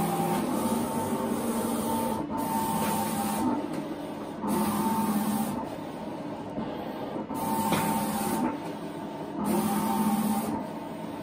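HP Latex 54-inch vinyl cutter at work on a contour cut. Its drive motors whine in spells of a second or two as the cutting head and rollers drive the printed sheet back and forth, with short lulls between them and a few light clicks.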